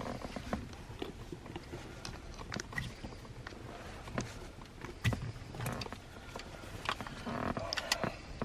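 Irregular small clicks, taps and rustling of plastic parts being handled: the push-start button and its switch housing in the dashboard trim. The sharpest click comes about five seconds in, and a busier run of clicks and rustle follows near the end.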